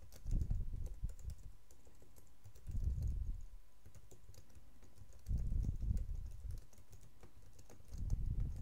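Typing on a computer keyboard: key clicks coming in several short runs, each run with a dull low knock underneath.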